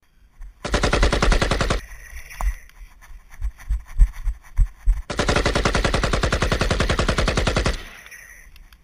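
Dubbed-in AK-47 automatic fire sound effect: two bursts of rapid shots, a short one of about a second and a longer one of about two and a half seconds, with a few dull thuds in the gap between them.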